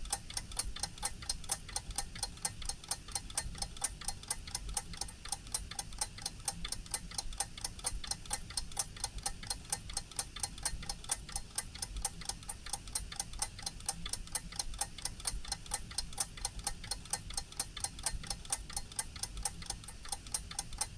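Leonidas mechanical wristwatch ticking steadily and fast, about five ticks a second.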